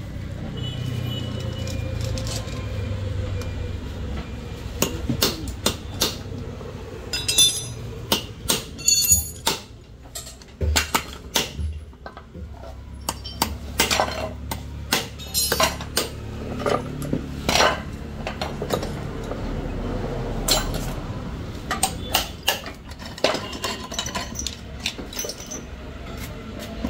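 Steel tools and loose engine parts clinking and knocking against a motorcycle engine's bare crankcase as it is stripped: irregular sharp metallic knocks, some ringing briefly, over a low steady rumble.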